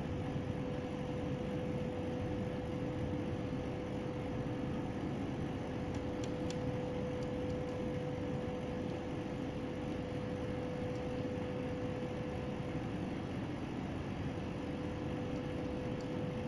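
A steady mechanical hum over a bed of noise, with one constant mid-pitched tone that never changes.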